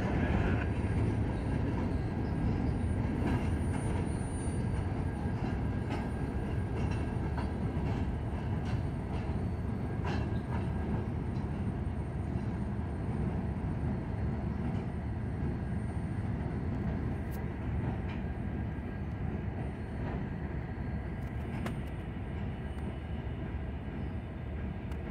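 Freight train of covered hopper cars rolling across a steel truss railroad bridge: a steady low rumble with scattered sharp wheel clicks, easing off slightly toward the end.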